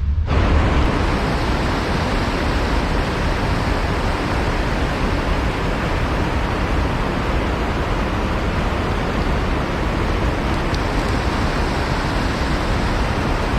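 Steady rushing water of a small creek, an even noise with no pauses or changes.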